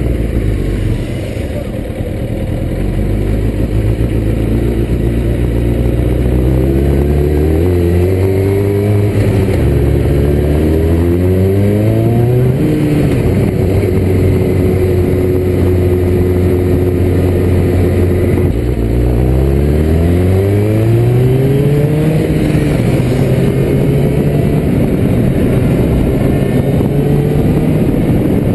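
The inline-four engine of a 1995 Kawasaki ZX-6R pulls away and accelerates up through the gears. Its pitch rises in each gear and drops at each upshift, then holds steady at cruising revs, all over a steady rush of wind noise.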